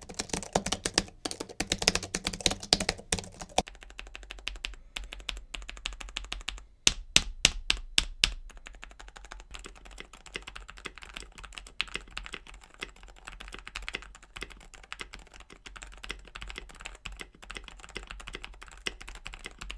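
Fast typing on the Sablute H1's non-mechanical keys, which the reviewer thinks are scissor switches. About four seconds in it gives way to quieter typing on a KBD67 keyboard with Kailh Deep Sea silent switches. A quick run of about seven sharper key strikes comes around seven to eight seconds in.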